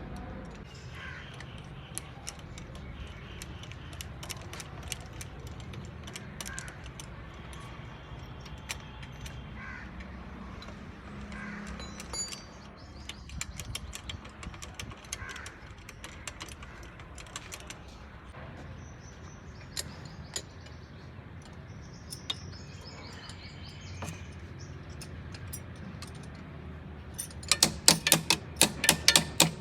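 Light clicks and knocks of metal parts and tools being handled over a steady low hum, ending in a quick run of about ten sharp taps.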